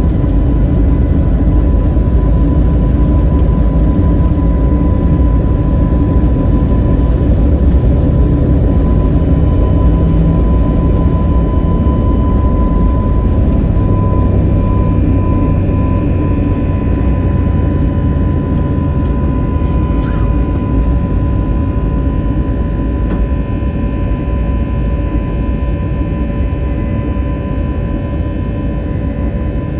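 Airbus A321neo's CFM LEAP-1A jet engines at departure thrust, heard inside the passenger cabin: a loud steady rumble with a steady whine, easing slightly toward the end.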